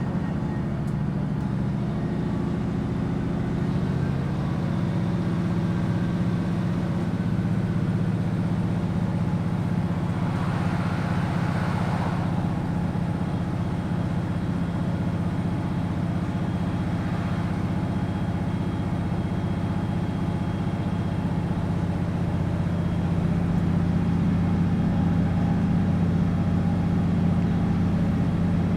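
Class 156 Sprinter diesel multiple unit with its underfloor Cummins diesel engines idling steadily, a low even hum. A short rush of noise rises and cuts off about ten to twelve seconds in.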